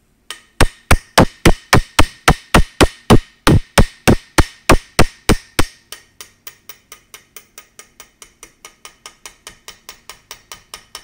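Small hammer tapping a pin into a shotgun receiver, driving it through while the top lever spring is held compressed: a steady run of sharp, ringing metal taps, hard and about three a second for the first half, then lighter and a little quicker.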